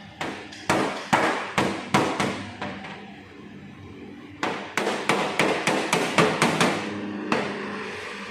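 Hammer blows in two runs of quick, sharp strikes, about two to four a second, with a pause of nearly two seconds between them.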